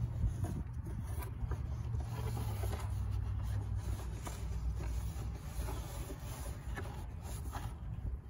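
Rubber gasket being pressed by hand into its channel around a plastic ATV storage-box rim: soft rubbing and scraping with scattered small clicks, over a steady low rumble.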